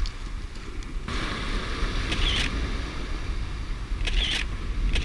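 Smartphone camera shutter sound going off three times, about two seconds apart, over steady wind and surf noise.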